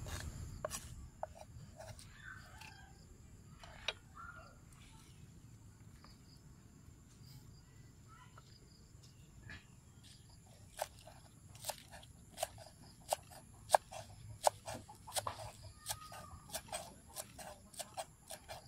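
A cleaver chopping leek on a thick wooden chopping board: sharp knocks of the blade striking the wood. They are scattered at first, then from about halfway through come in a steady run of chops, one to two a second, getting quicker toward the end.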